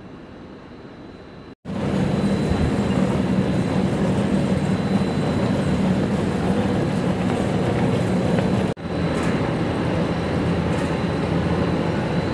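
Steady mechanical din of a PVC mesh anti-slip mat production line running, with a low hum under it. It starts suddenly about a second and a half in, after a quieter stretch, and dips for an instant near the end.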